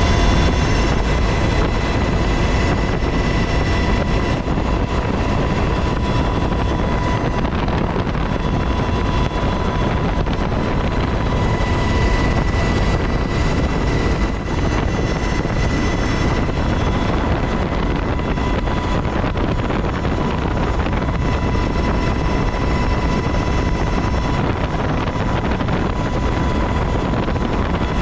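Cabin noise of a UH-60 Black Hawk helicopter in flight: a loud, steady rotor and engine din heavy in the low end, with a steady high whine over it.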